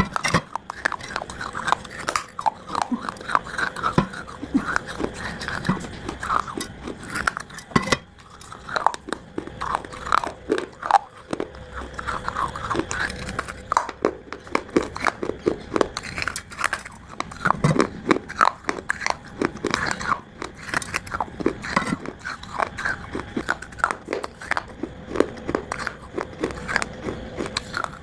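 Close-up biting and chewing of dry Multani mitti (fuller's earth clay) chunks: many short, crisp crunches and crumbles in quick, uneven succession.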